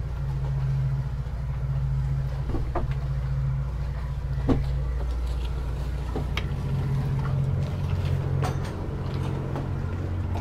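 Steady low mechanical hum, changing in tone about six seconds in, with scattered knocks and taps on top.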